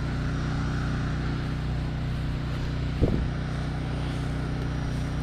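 Steady low motor hum with an even drone that holds unchanged, and a brief voice-like sound about three seconds in.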